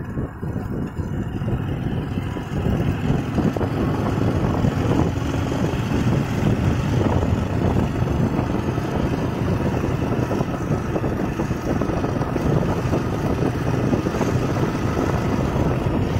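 Motorbike running at steady speed along a road, heard from the rider's seat, with wind rushing over the microphone.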